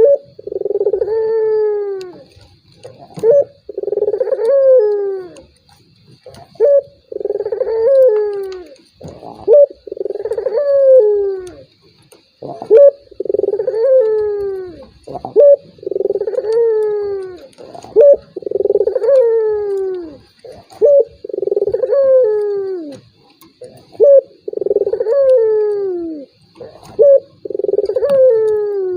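Puter doves (Barbary / ringneck doves) cooing over and over, about one phrase every three seconds: a short sharp note, then a long falling coo.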